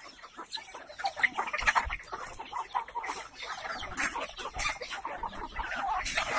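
A large flock of free-range Indonesian village chickens (ayam kampung) clucking all at once in a dense, overlapping chatter of short calls with scattered sharp clicks, excited while crowding in to be hand-fed.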